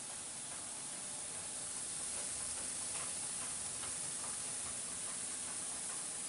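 Tözmer Runner automatic car wash running: a steady hiss of water spray and rotating brushes washing a car, a little louder from about two seconds in, with faint light ticks.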